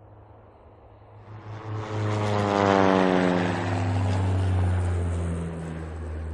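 An engine passing by: it swells in loudness over a second or so while its pitch slides steadily downward, then holds loud and cuts off suddenly at the end.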